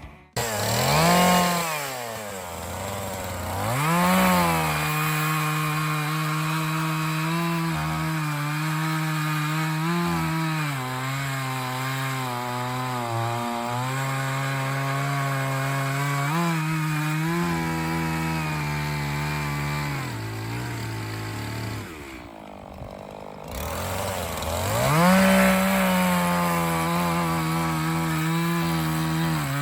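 Echo CS501P two-stroke chainsaw bucking an ash trunk into firewood rounds. It revs up, then settles to a lower, wavering pitch as the chain bites into the wood. It drops back briefly about 22 seconds in, then revs up again for the next cut.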